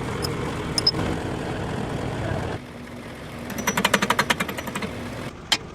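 Factory machinery running steadily, then breaking off abruptly about two and a half seconds in. After that comes a quick rattle of sharp metallic impacts, about ten a second for roughly a second, and then a few single knocks.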